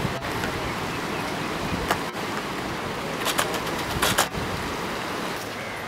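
Floodwater rushing steadily in a swollen river, with a few brief clicks about two, three and four seconds in.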